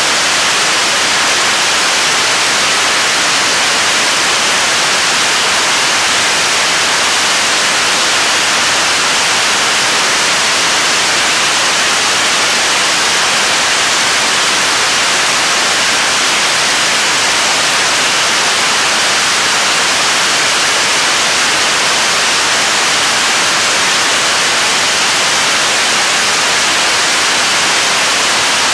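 Korean launch vehicle (Nuri) third-stage 7-tonne-class kerosene and liquid-oxygen rocket engine firing steadily on a test stand, mid-burn in a long-duration hot-fire test: a constant, even rushing noise, hissy rather than deep, that holds the same level throughout.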